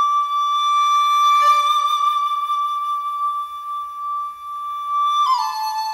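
Background music: a flute-like wind instrument holds one long steady note, then drops to a lower note near the end.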